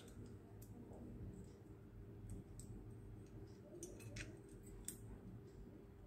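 Faint scattered clicks and ticks of fingers handling a mobile phone board in a PCB holder and peeling copper tape, over a low steady hum.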